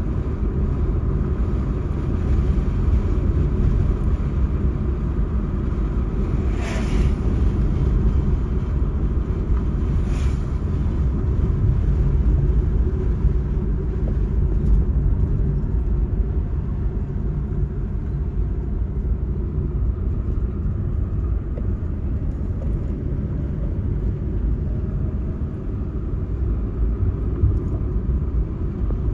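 Steady low rumble of a road vehicle driving on a paved road, engine and tyre noise running on without change. Two brief sharper sounds stand out about seven and ten seconds in.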